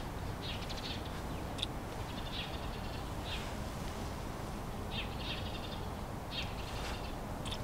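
Birds calling: short, buzzy, high calls repeated every second or so, over a steady low rumble of wind.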